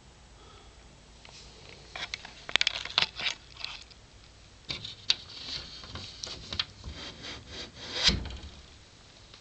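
Rubbing and scraping with sharp clicks, in two bursts, ending in a dull thump about eight seconds in.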